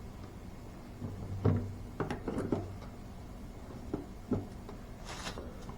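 A few sharp knocks and clanks of tools and parts being handled on an engine, with a short scraping rustle near the end.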